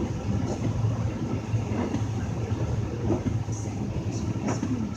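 2000 Lincoln Navigator's V8 engine held steady at about 1500 rpm, with the climate fans running on high. It is being held there under full electrical load to test the alternator's charging, which the owner takes to be failing.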